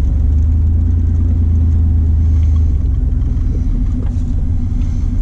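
Straight-piped 1994 Chevy S10 pickup's exhaust, heard from inside the cab while driving: a loud, steady low drone whose deepest note drops away a little under three seconds in.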